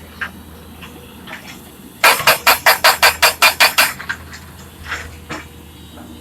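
A rapid run of about a dozen sharp knocks, about five a second for two seconds, over a low steady hum, with a few single clicks before and after.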